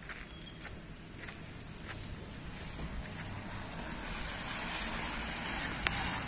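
Footsteps on slushy, wet cobblestones, a little under two steps a second, fading after about two seconds. A hiss then swells steadily, like a vehicle's tyres approaching on the wet road, with one sharp click near the end.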